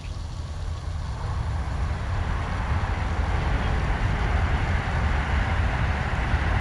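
Train approaching, a low rumble with a rushing noise that grows steadily louder.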